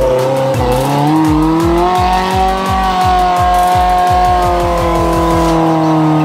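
Electronic background music: a build-up of low kick-drum beats that speed up under held synth notes, then break off near the end.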